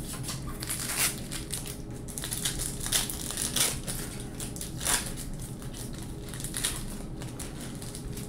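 Crinkling and tearing of a sports-card pack's shiny foil wrapper as it is handled and ripped open, an irregular run of crackles with a few sharper crackles about 1, 3, 3.5 and 5 seconds in.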